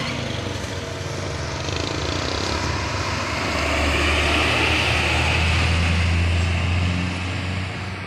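Intercity coach bus driving past close by: the engine drone and tyre noise grow to their loudest about halfway through as it goes by, then fade as it pulls away.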